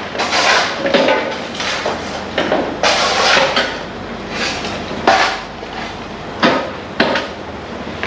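Construction work: irregular clanks and knocks of building materials being handled and struck by labourers, about a dozen sharp hits, some ringing briefly.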